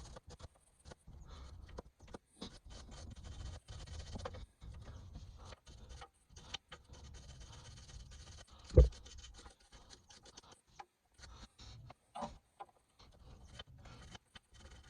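Scraping and scrubbing in short, irregular strokes as surface rust is scoured off a rusted anti-roll bar drop-link bolt to let penetrating oil get in. One sharp knock stands out a little after the middle.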